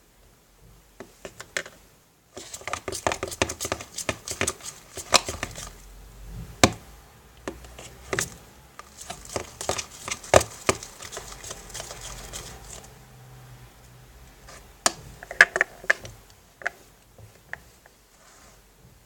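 Shaving-foam slime being stirred in a bowl as the borax water goes in: quick, irregular clicks and knocks of the utensil against the container over a scraping sound for about ten seconds, then a few scattered knocks.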